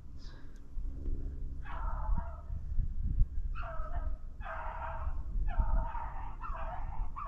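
Beagles baying on a rabbit chase: a run of drawn-out bawls, each under a second long, starting a couple of seconds in and repeating several times.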